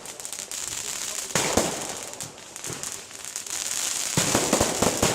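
Aerial fireworks exploding: a continuous crackling from crackle-effect shells, sharp bangs about one and a half seconds in, and a dense run of crackles and pops near the end.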